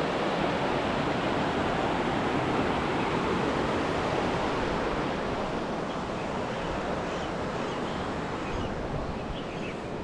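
Mountain river rushing: a steady wash of flowing water that eases slightly in the second half.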